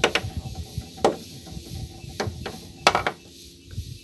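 Sharp knocks and taps against the boat's edge as a caught fish is handled, about six at uneven spacing, with the loudest cluster near three seconds in.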